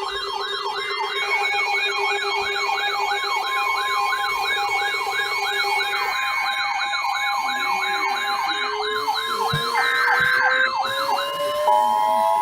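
Electronic siren yelping rapidly up and down, with steady alert tones sounding under it. Near the end a rising tone sweeps up and a steady two-note alert tone begins.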